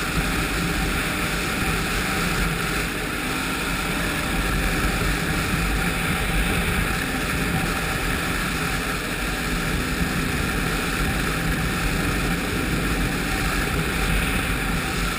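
Ski-Doo snowmobile with a 1200 4-TEC three-cylinder four-stroke engine running steadily while riding along, an even engine-and-track drone with no change in pitch or level.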